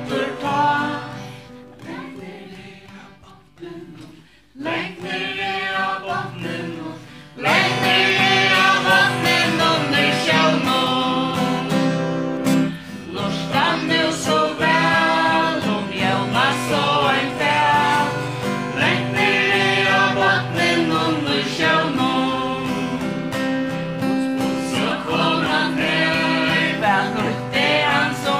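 Live worship band performing a song: a man and two women singing into microphones with keyboard and acoustic guitar. It starts soft and sparse, and the full band comes in louder about seven seconds in.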